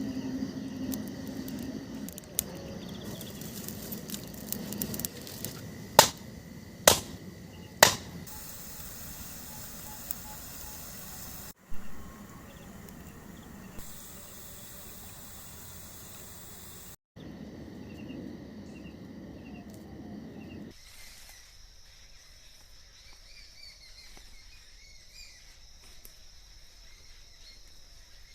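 A run of short outdoor clips joined by abrupt cuts: three sharp knocks about a second apart early on, and in the last several seconds insects chirping over faint forest ambience.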